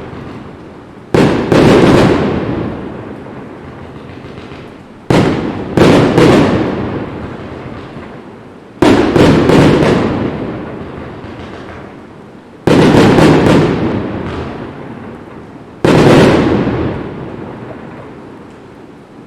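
Aerial firework shells bursting in five volleys of one to three sharp bangs, about every three to four seconds, each dying away in a long fading echo.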